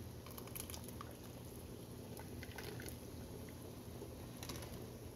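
Faint liquid sounds of a ladle scooping hot red chile sauce and pouring it into a pot of menudo, with soft crackles and ticks, a cluster of them near the start and another near the end, over a steady low hum.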